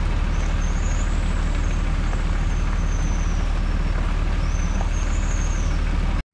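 A vehicle driving along a wet gravel road: a steady, loud low rumble of engine and tyres on gravel that cuts off suddenly near the end.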